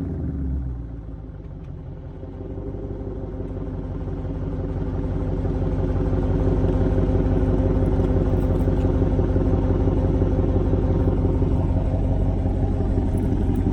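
Dodge Charger Daytona's Hemi V8 exhaust through dual Jones Turbine JR20 mufflers: a falling rev settles just after the start into a low, steady engine note, which grows louder over the next few seconds and then holds.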